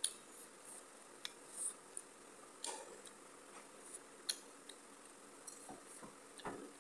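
Faint eating sounds of rice being eaten by hand: scattered soft clicks and wet smacks from chewing and from fingers mixing rice on a plate.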